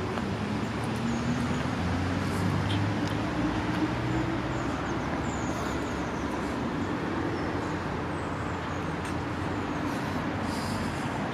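Road traffic noise with a vehicle engine running close by; its low hum is strongest in the first few seconds, then eases to a steady background.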